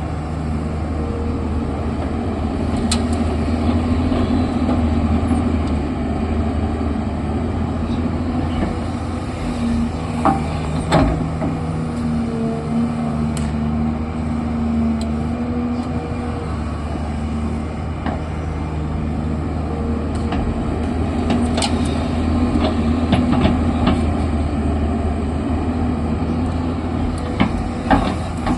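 Heavy diesel engine of a digging machine working, running steadily with its hum shifting under load. Occasional sharp knocks and clanks come through, several of them around the middle and near the end.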